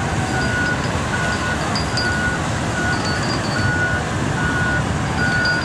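Vehicle reversing alarm beeping at an even pace, about one beep every 0.8 seconds, over a steady engine rumble.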